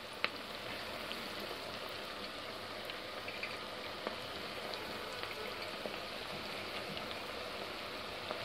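Chopped onions frying in ghee and oil in a pot: a steady sizzle with scattered small pops and crackles. A single light tap sounds just after the start.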